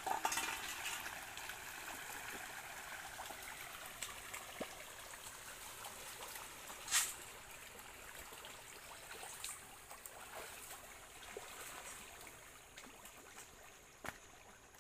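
A dense shoal of pangasius catfish feeding at the pond surface: continuous splashing and churning of water, with scattered sharper splashes, the loudest about seven seconds in. It fades slowly toward the end.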